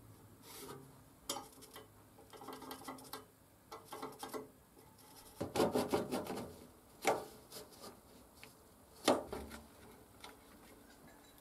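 Lengths of steel angle being handled and clamped together with quick-release bar clamps on a steel workbench: rubbing and scattered clicks, a flurry of metal clatter about halfway through, and two sharp knocks a couple of seconds apart.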